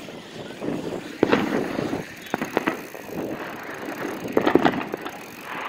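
Bicycle being ridden along a street: a steady rolling noise from the tyres and frame, with wind on the microphone and several sharp clicks, the loudest about a second in and a cluster around four and a half seconds in.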